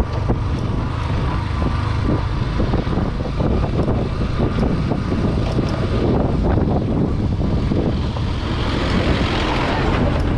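Motorcycle on the move: steady engine and road noise at speed.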